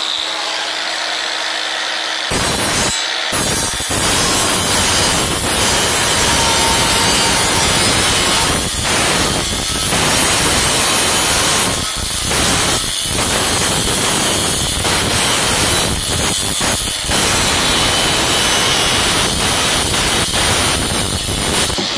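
Battery-powered Bauer cutting tool cutting through steel angle iron. It runs with a steady hum for about two seconds, then bites into the metal with a loud, harsh cutting noise that carries on with brief letups.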